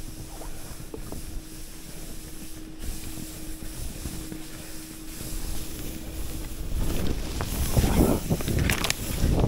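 Skis sliding through fresh powder snow with a steady hiss, which turns louder and rougher from about seven seconds in, with thuds and crunches, as the skis plough into deep powder.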